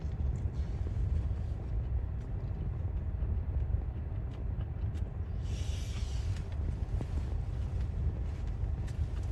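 Car engine idling, a steady low rumble heard from inside the parked car's cabin, with a brief rustle about six seconds in.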